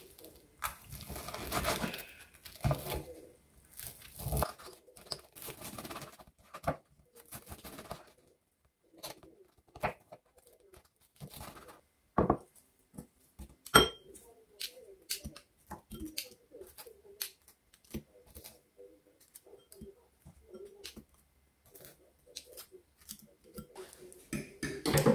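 Table knife sawing through crisp fried fish cakes (pempek) on a wooden cutting board, held with a fork: a run of rasping cuts over the first eight seconds or so. Then scattered clicks and knocks of knife, fork and pieces on the board and a ceramic bowl, the sharpest about fourteen seconds in.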